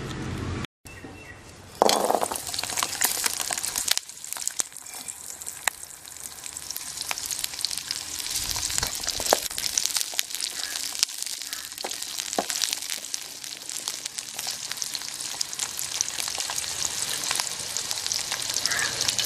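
Small shallots frying in hot oil in a steel kadai: a steady sizzle with dense crackling that starts with a loud burst about two seconds in as they go into the oil. They are stirred now and then with a perforated steel ladle.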